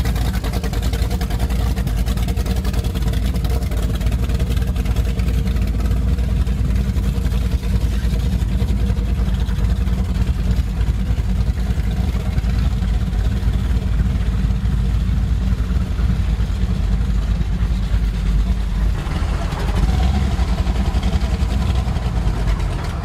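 Performance speedboat's engine running at low speed as it idles in toward the ramp, a steady low rumble.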